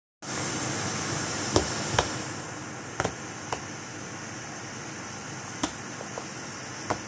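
Small dog chewing a latex pig squeak toy, its teeth giving a few short sharp clicks and snaps over a steady hiss; the toy's squeaker, chewed to pieces, makes no squeak.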